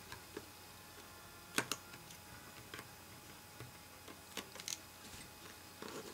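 Faint, scattered clicks and ticks from a small taped box being handled and worked at with kitchen scissors to cut the tape, with a close pair of sharper clicks about a second and a half in and another about four and a half seconds in.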